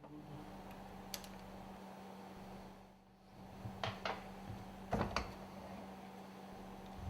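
A few sharp metallic clicks and light knocks from small valve parts being handled and taken apart, over a steady low hum. The clicks come singly and in pairs, thickest about four to five seconds in.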